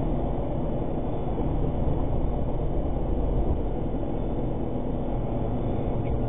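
Steady road and engine noise inside the cab of a cash-in-transit vehicle driving at highway speed, about 95 km/h.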